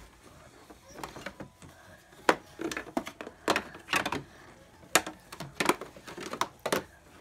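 Hard plastic parts of a PJ Masks HQ toy playset knocking and clicking as they are handled and fitted together: an irregular string of sharp taps and clacks, about ten in all.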